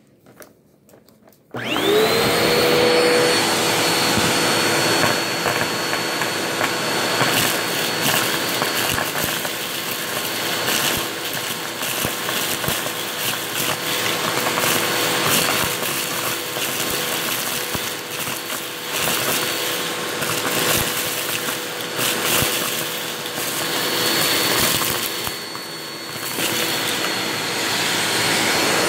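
Vacuum cleaner switched on about a second and a half in, its motor whine rising quickly to a steady pitch over a loud rushing of air, then running continuously with the loudness swelling and dipping as it is moved about.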